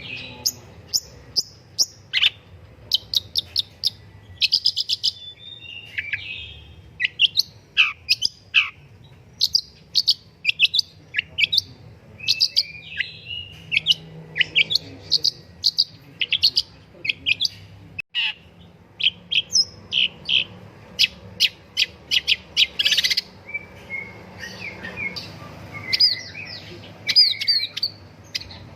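Long-tailed shrike (pentet) in full song: a fast, varied run of sharp chips, short trills and harsher chattering notes, with brief pauses between phrases.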